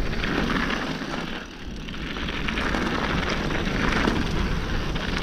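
Mountain bike tyres rolling fast over loose dirt and gravel, with wind rushing over the microphone. The noise eases briefly about a second and a half in, then builds again.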